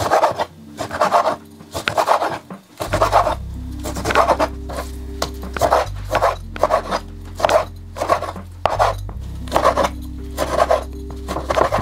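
Chef's knife sawing through skinned raw shark meat and scraping on a wooden cutting board, in repeated strokes about twice a second. Background music plays underneath, its bass coming in about three seconds in.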